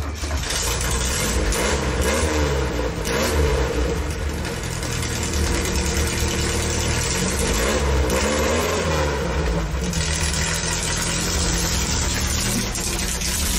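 Air-cooled VW Beetle flat-four engine on a home-built ATV, running and revving up and down several times as the machine pulls away and drives off under power.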